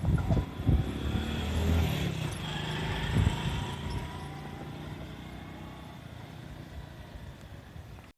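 JR E531 series electric train running on the rails and moving away: a few wheel knocks near the start and about three seconds in, over a steady low rumble that fades away.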